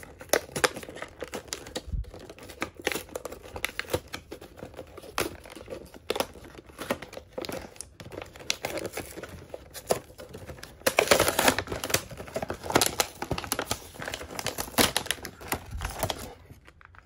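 Action-figure packaging being opened by hand: the cardboard box and clear plastic blister tray crinkle and click as they are pulled apart and handled, with a denser burst of crinkling about eleven seconds in.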